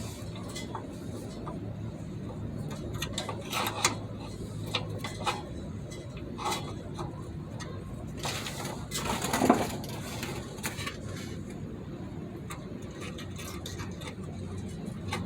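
Light metallic clicks and clinks of a steel retaining clip being worked into the slot of a 1954 Ford F100's parking brake cable bracket, with a louder scraping clatter about nine seconds in. A steady low hum runs underneath.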